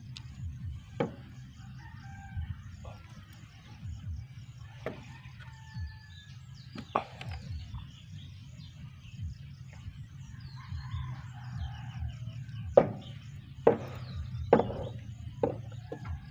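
A rooster crowing with small birds chirping, over a steady low hum. About four sharp knocks come in the last few seconds and are the loudest sounds.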